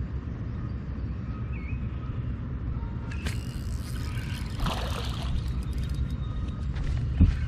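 Water sloshing and splashing as a hooked largemouth bass is fought to the boat on a rod and reel. Scattered clicks start about three seconds in, and there is a sharp thump near the end, all over a steady low rumble.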